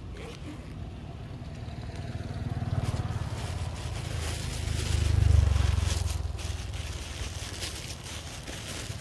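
A motor vehicle passing, its low engine rumble growing to a peak about five seconds in and then fading away.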